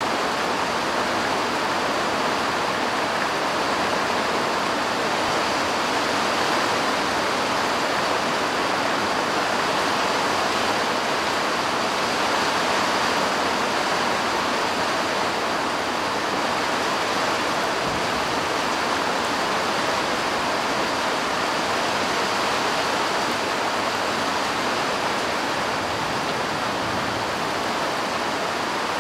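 Steady rain falling: a dense, even hiss that holds without let-up.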